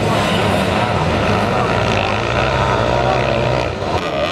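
Sidecarcross racing outfits' motocross engines running hard as several machines race round the track, their pitch rising and falling as the riders work the throttle. The level dips briefly near the end.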